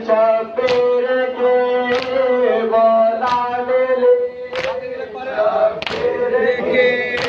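A voice singing a noha (Muharram mourning lament) in long held notes, over the hand strikes of a group of men beating their chests in unison (matam), a sharp slap about every one and a third seconds.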